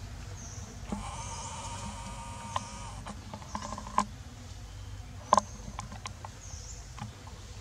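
Outdoor animal and bird calls: a pitched call of about two seconds starting about a second in, then a few short sharp clucks or clicks, the loudest about five and a half seconds in, with faint high chirps over a steady low background hiss.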